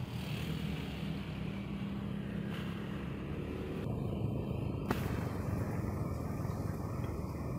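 Steady rumble of a motorcycle engine and wind while riding along a road, with one sharp click just before five seconds in.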